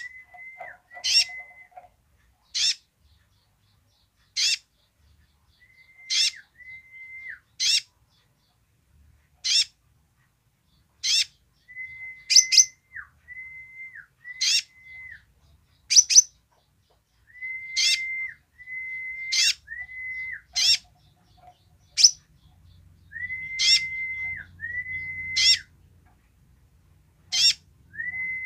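Male purple-throated sunbird (kolibri ninja) calling over and over: sharp high notes that drop fast, most of them followed by a short level whistle that falls away at the end, one call every second or two.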